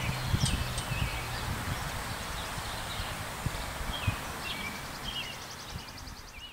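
Outdoor ambience: scattered short bird chirps over a steady hiss, with irregular low rumbling; the siren is silent.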